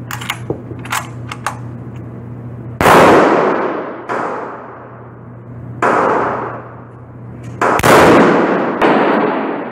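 Several loud gunshots in an indoor shooting range, each ringing on in a long echoing decay, with a few light metallic clicks in the first second and a half.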